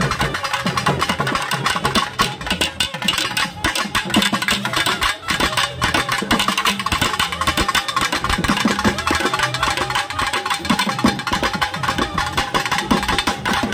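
Live folk drumming: fast, continuous strokes on a two-headed barrel drum slung at the drummer's waist. From about halfway in, a steady held melody note sounds over the drumming.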